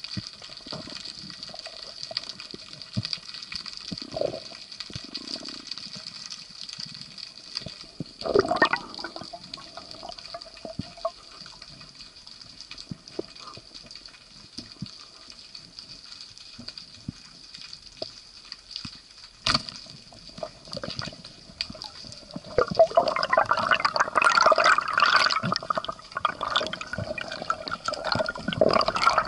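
Underwater sound through a diving camera: a steady high whine under scattered crackling and bubbling, with a single sharp click about two-thirds through. Louder bubbling and rattling fill the last quarter, as a rockfish struggles on the speargun's shaft.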